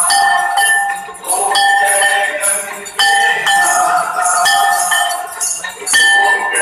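Temple bells rung repeatedly during an aarti, about one or two sharp strikes a second, each ringing on and overlapping the next.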